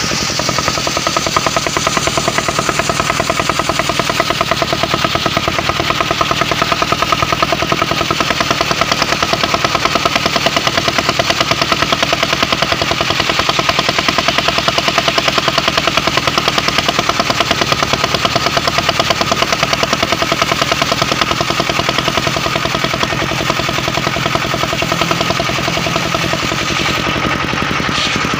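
Portable circular sawmill running steadily, its engine giving rapid even pulses, with the blade cutting mahogany and adding a hiss that thins out near the end.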